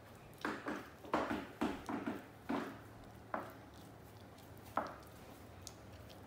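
Staffordshire bull terrier licking and nibbling at its own foreleg and paw: a quick run of wet licks and chews in the first few seconds, then two more, spaced apart.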